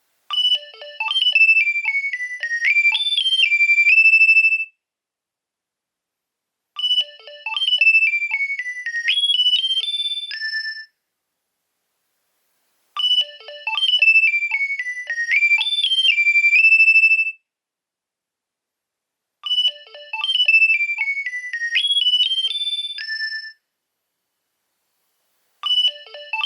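Nokia 2300 mobile phone ringtone: a short electronic melody of quick high notes, about four seconds long, repeating with pauses of about two seconds between. It plays four full times and starts a fifth near the end.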